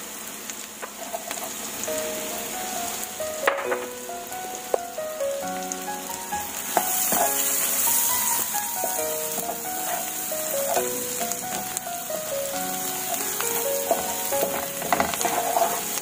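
Garlic, onion and shallots sizzling steadily as they fry in melted butter in a wok, with a spatula scraping and knocking against the pan a few times. A light background melody plays over the sizzle.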